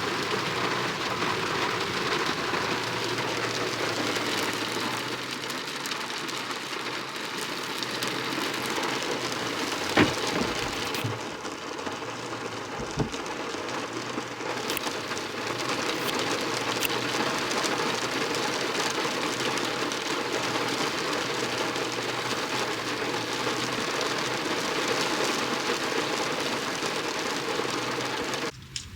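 Steady rain falling in a dense patter, with a sharp knock about ten seconds in and a smaller one a few seconds later.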